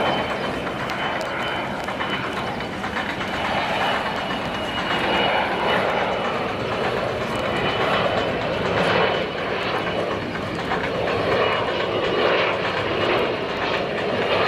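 Kawasaki C-1 military transport's two turbofan engines running as it flies a low pass: a steady rushing jet noise that swells and fades a little, with a thin high whine held throughout.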